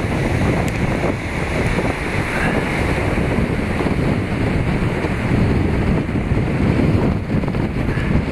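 Wind buffeting the microphone over the steady rush of a river in full flood.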